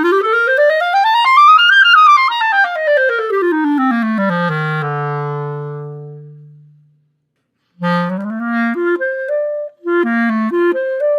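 Solo clarinet, fitted with a Vientos Vintage ligature, plays a fast scale up into the high register and back down to a held low note that fades away. After a short pause it begins a short phrase of separate notes.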